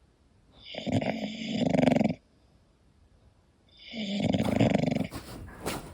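English bulldog snoring in its sleep: two long snores about three seconds apart, each lasting about a second and a half.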